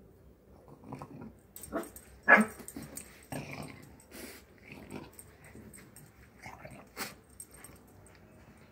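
Small dogs play-fighting, with growls and wheezy snorting breaths. The loudest sound is a short sharp cry a little over two seconds in.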